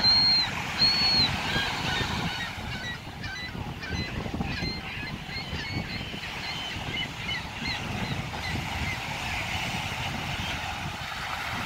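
Seaside ambience of wind and small waves breaking, opening with two loud, steady, high whistle-like notes about half a second each, followed by many short scattered high chirps.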